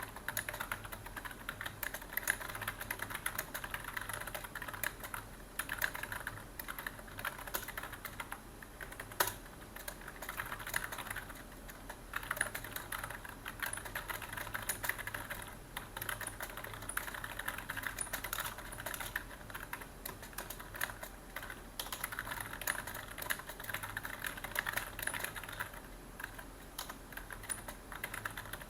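Computer keyboard typing in rapid, continuous runs of key clicks with short pauses, over a faint steady low hum.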